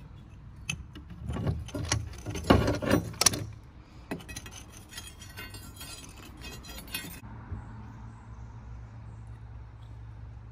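Steel rebar clinking and rattling as a bar is handled and pushed into a drilled hole in a concrete block wall: sharp metallic knocks in the first few seconds, then a quick scraping rattle, followed by a faint steady low hum.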